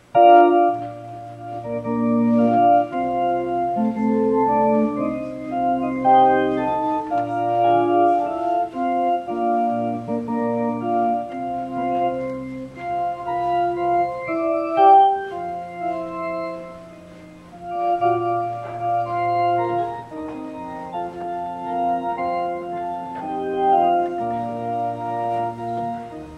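Organ playing a slow passage of held chords over sustained bass notes, the chords changing every second or two. It comes in abruptly and dips briefly about two-thirds of the way through.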